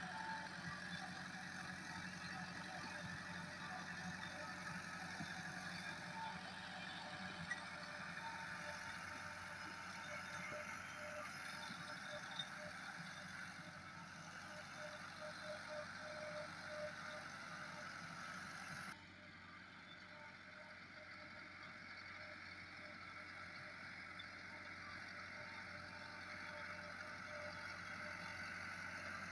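Massey Ferguson 385 tractor's four-cylinder diesel engine running steadily as it pulls a laser land leveller over loose soil. About two-thirds through the sound drops abruptly and changes, then slowly builds back up.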